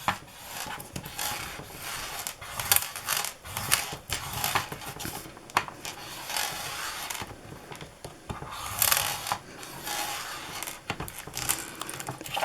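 Thick cardstock strips being scored: a scoring tool scraping along the card in a series of short, irregular strokes, with paper rustling as the strips are handled.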